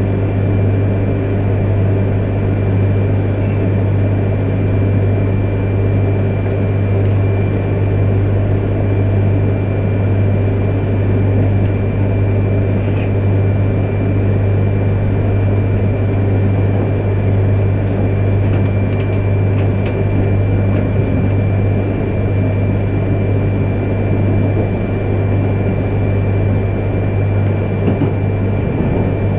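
Inside an E3 series Yamagata Shinkansen car as it runs away from the station: a steady low hum with a thin, steady high tone over it.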